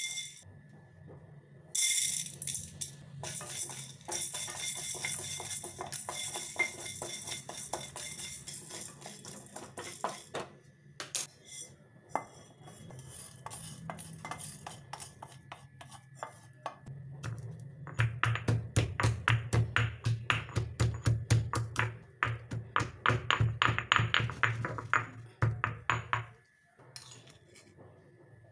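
Peppercorns and dal clattering and scraping in a dry aluminium kadai as they are roasted and stirred. Later comes a long run of quick, regular pestle strikes with a dull thud, pounding them in a stone mortar.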